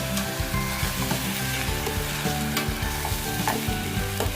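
Jeerakasala rice being stirred in hot oil with onion and whole spices in a pressure cooker: a steady sizzle, with the spoon scraping and ticking against the pot now and then.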